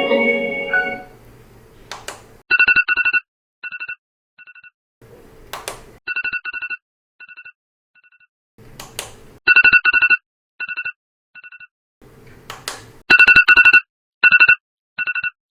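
Digital alarm clock sounding its beeping alarm: a quick run of four electronic beeps followed by two single beeps, repeating about every three and a half seconds and getting louder. Sharp clicks fall between the beep groups.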